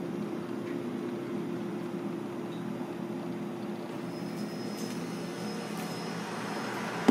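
Steady hum and rushing noise of running kitchen machinery. A faint high steady tone joins about four seconds in, and a single sharp knock comes at the very end.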